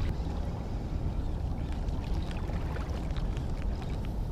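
Steady low rumble of wind and water lapping along a rocky shoreline, with faint scattered ticks from a baitcasting reel being cranked in.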